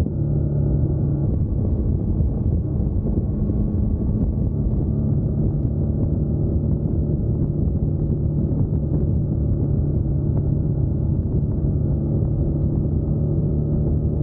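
2021 Yamaha MT-09's 890 cc inline-three engine running at a steady cruising note under way, its pitch holding nearly constant with a brief break about a second in.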